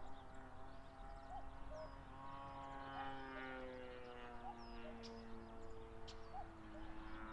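A steady, distant engine-like drone whose pitch sinks slowly, with faint bird calls over it.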